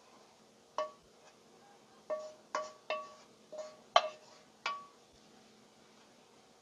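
Frying pan knocking against a metal sheet tray as toasted bread cubes are tipped out onto it: seven sharp clinks, each with a brief metallic ring, the loudest about 4 s in.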